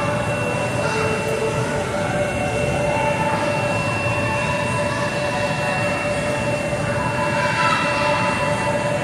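Steady, loud din of a large indoor hall: an even rumble and hiss with a faint steady high tone running through it and no distinct events.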